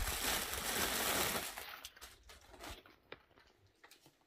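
Rustling of garments being handled and spread out, loud for about the first second and a half, then fading to a few faint soft clicks and taps.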